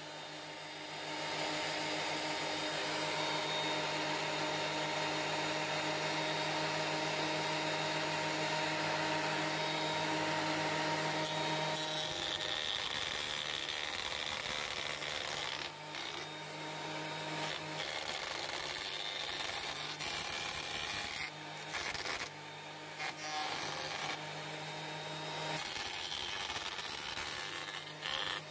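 DeWalt planer-thicknesser running with a steady motor whine, its cutterhead shaving wood as a board feeds through. The cutting noise shifts and briefly stutters several times as the stock passes the knives.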